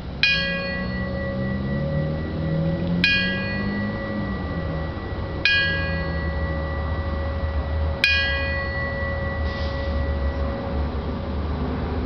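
A bell on a stand struck by hand four times, evenly about two and a half seconds apart, each stroke ringing on with several overtones, part of the 5-5-5 signal, the traditional way of announcing a firefighter's death in the line of duty. A low rumble lies underneath.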